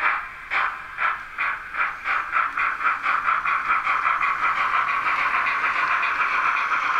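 Sound decoder of a Roco H0 model DB class 50 steam locomotive playing steam exhaust chuffs through the model's small loudspeaker as the engine pulls away. The chuffs quicken from about two a second to a rapid beat that runs together about halfway through.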